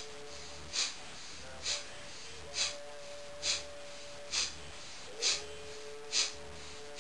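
Kapalbhati pranayama breathing: a man makes short, forceful exhalations through the nose, driven by pulling the belly in, with passive inhalations in between. There are seven sharp puffs, evenly spaced, a little more than one a second.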